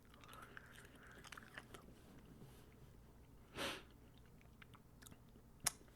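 Faint close-up chewing of a crisp strawberry wafer, with small crackles as it is bitten and crunched. A brief louder hiss comes about three and a half seconds in, and a sharp click near the end.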